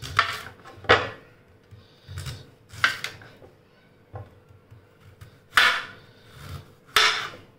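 Kitchen knife slicing through a peeled cassava (tapioca) root into thick rounds. Each stroke ends in a sharp knock on the cutting board: about four loud chops, a second or two apart, with lighter taps between.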